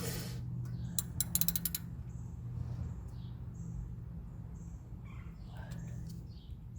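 A hand ratchet tool clicks rapidly for under a second while the seized retaining screw of a brake rotor is worked loose, with a sharp knock just before. A steady low hum runs underneath.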